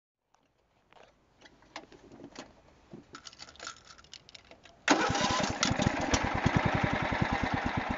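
A few faint clicks and rattles, then about five seconds in a Craftsman riding mower's single-cylinder Kohler Command engine starts up and runs with an even, fast beat of firing pulses.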